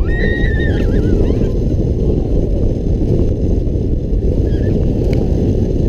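Heavy wind rushing over the microphone of a camera riding the front of a moving roller coaster train, a steady low roar throughout. A brief high-pitched cry sounds in the first half second.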